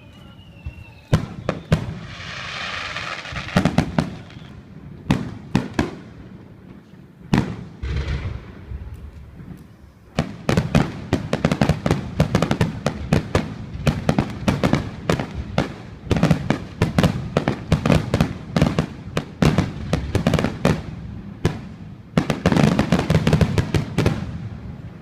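Aerial fireworks bursting: scattered bangs at first, with a hissing crackle about two to four seconds in, then a rapid barrage of many bangs from about ten seconds in until near the end.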